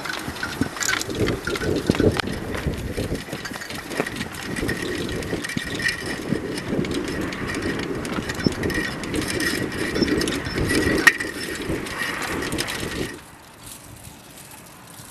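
Wind sculptures built from recycled plastic buckets, tin cans and bottles clattering and knocking as they spin and swing in the wind. The clatter drops to a much quieter hiss about two seconds before the end.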